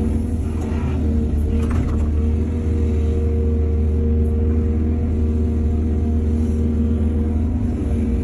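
Heavy diesel engine of an excavator running steadily at a working speed, with two brief noisier bursts about one and two seconds in.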